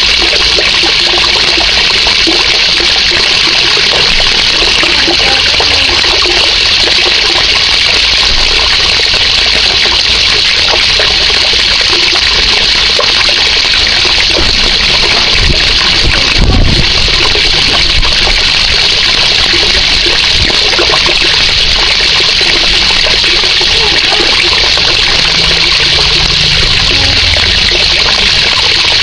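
A jet of water from a pipe pouring into a pond and splashing steadily on its surface. A brief low thump about halfway through.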